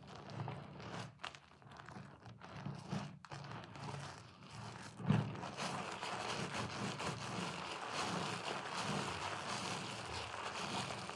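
Hands squeezing and kneading a sponge soaked in thick white soap lather: wet squishing with crackling foam. A louder squelch comes about five seconds in, after which the squishing goes on more steadily.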